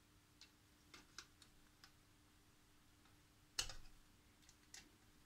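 Faint, scattered clicks and taps of small coaxial cable plugs being handled and pushed onto their sockets inside a transceiver's metal chassis, with one sharper click about three and a half seconds in.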